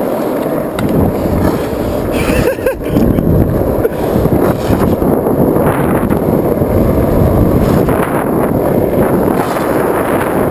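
Skateboard wheels rolling fast down asphalt, a steady loud roar mixed with wind noise on the microphone.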